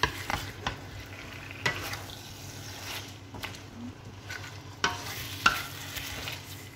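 Spatula stirring chicken wings in chili paste in a nonstick frying pan, with a low sizzle and scattered scrapes and knocks against the pan, the sharpest about five and a half seconds in.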